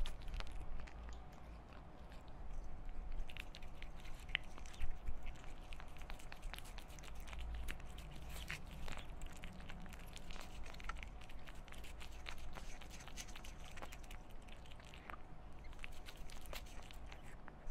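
Close-miked kitten eating tuna from a small glass dish: chewing and licking, heard as a steady run of many small, soft clicks and crunches.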